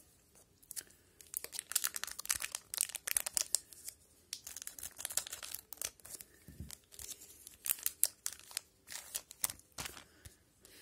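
Wrapper of a 2019-20 O-Pee-Chee hockey card pack being torn open and crinkled by hand, in an irregular run of short crackles.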